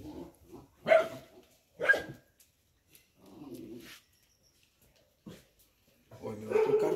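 Dog barking: two loud sharp barks about a second apart, then quieter short barks.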